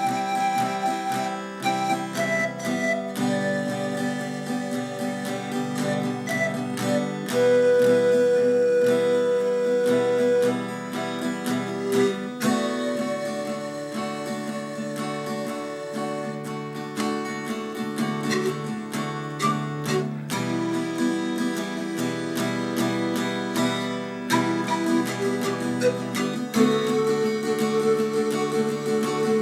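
Instrumental music: plucked acoustic guitar accompaniment under a melody of long held notes that change every few seconds.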